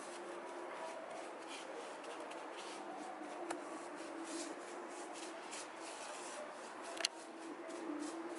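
A paintbrush stroking white paint onto a cast cement baluster: faint, quick, scratchy brush strokes in a steady run, with a sharp tap near the end.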